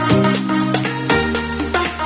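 Background music: an upbeat electronic dance track with a steady beat, a bass line and synth melody notes.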